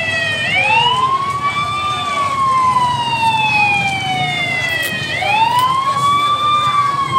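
Siren wailing in slow cycles: its pitch sweeps up quickly, then falls slowly over about three seconds, twice.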